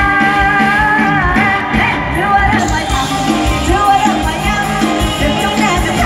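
Live Thai Isan band music played loud over a concert sound system, with a woman singing a wavering, drawn-out melody line through roughly the first half, over a steady drum beat.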